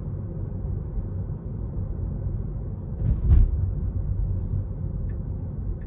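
Steady low road and tyre rumble heard inside the cabin of a moving Tesla Model 3, an electric car with no engine note. A single short thump sounds about three seconds in.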